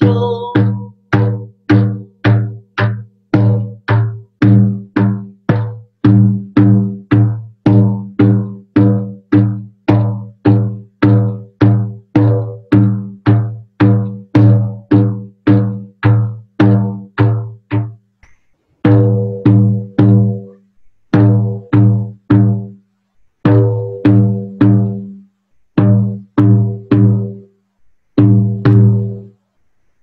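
Large rawhide frame drum struck with a padded beater at a steady two beats a second, each stroke ringing with a low, deep tone that fades before the next. From about eighteen seconds in, the beats come in short groups of two or three separated by brief pauses.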